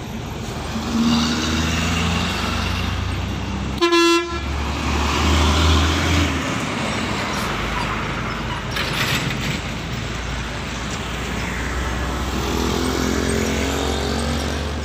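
Diesel engine of a standing Mercedes-Benz O500R 1836 coach idling with a steady low drone. About four seconds in, a vehicle horn gives one short, loud toot.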